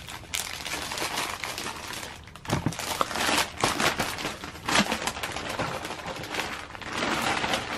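Plastic poly mailer bag crinkling as hands open and handle it, in irregular rustles and crackles.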